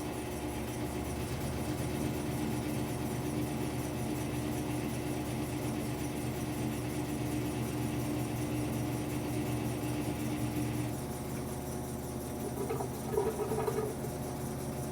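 Whirlpool top-loading washing machine running its drain and spin cycle: a steady motor and pump hum. About eleven seconds in the main tone cuts off and the hum changes, followed by a few irregular knocks.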